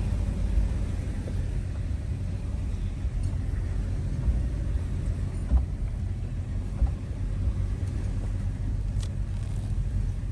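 Toyota 4Runner's 4.0-litre V6 running at low trail speed, a steady low rumble, with a few short knocks from the truck working over rough ground.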